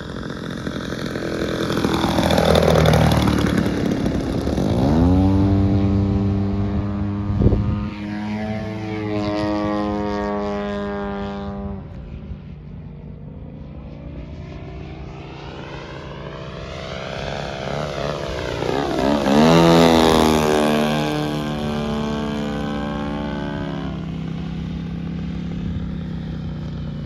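Gas-powered radio-controlled model airplane's engine and propeller making several loud fly-bys, the pitch rising as it closes in and dropping away as it passes. The loudest passes come a few seconds in, again soon after, and once more about two-thirds of the way through, with the engine running on steadily near the end.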